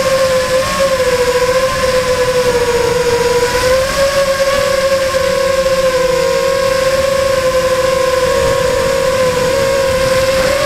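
Electric motor and propeller whine of a small FPV model aircraft, heard from its onboard camera: one steady high hum whose pitch wavers slightly as the throttle changes, over rushing air noise.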